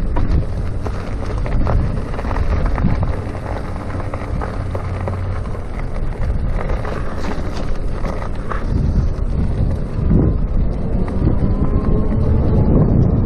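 Wind buffeting a chest-mounted GoPro's microphone during an electric-bike ride, over a steady low rumble of tyres on the road. A run of short clicks or rattles comes about halfway through.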